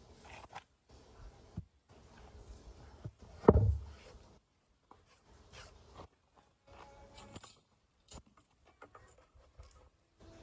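A thick round tree-trunk slice being flipped over and set down on a concrete floor: one loud, low thud about three and a half seconds in, among faint scrapes and light clicks.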